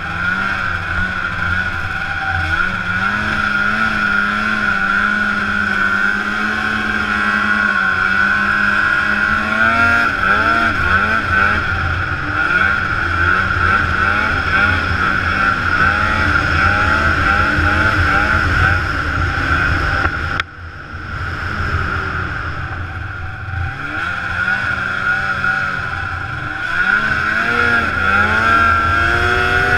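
Ski-Doo snowmobile engine running under way, its revs rising and falling with the throttle over a steady high whine. About two-thirds through the throttle is chopped briefly and the engine note drops off before it pulls up again.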